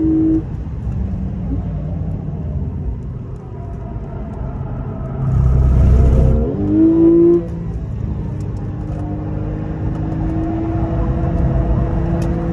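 Porsche 911 GTS flat-six heard from inside the cabin on track. The engine note drops as the throttle is lifted just after the start, a loud low rumble comes for about a second midway, then the revs climb quickly and cut off at a gear change, followed by a steady, slowly rising pull under acceleration.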